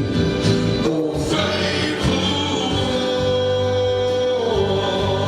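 Live gospel song: a voice sings over instrumental accompaniment, holding one long note through the middle before stepping down to a lower one.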